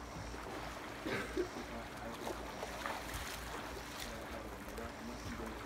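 Swimming-pool water lapping and dripping, with a low rumble of wind on the microphone and a few faint voices.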